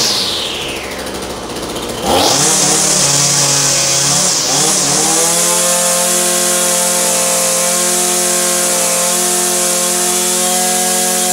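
Echo SRM-2620 string trimmer's two-stroke engine being revved. At the start the revs are falling off. About two seconds in the throttle opens sharply, and the engine settles into a steady high-speed run.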